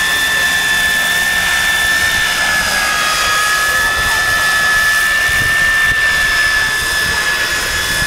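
Radio-controlled scale Apache model helicopter in flight, its rotor and drive giving a steady high-pitched whine that dips slightly in pitch about three seconds in, with wind rumbling on the microphone underneath.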